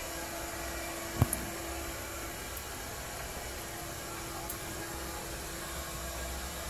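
Steady hum and hiss of room noise, with one sharp knock about a second in, followed by a smaller one, as the wooden toilet cubicle door is pushed open.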